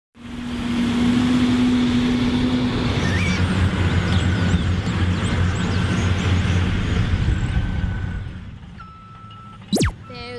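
Steady heavy-vehicle engine rumble under a noisy wash, with birds chirping over it, fading out about eight and a half seconds in. Near the end comes a faint steady tone and a quick falling swoosh.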